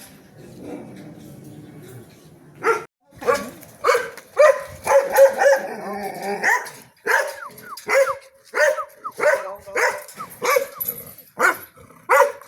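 A dog barking repeatedly, about two barks a second, starting nearly three seconds in.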